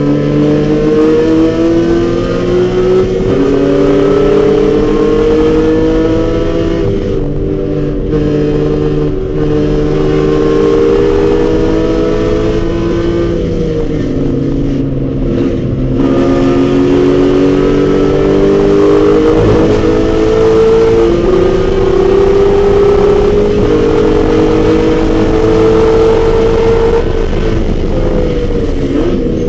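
BMW E46 M3's straight-six engine pulling hard on a race track, heard from inside the car. Its pitch climbs steadily, drops away in the middle as the driver lifts and downshifts, climbs again, and falls once more near the end.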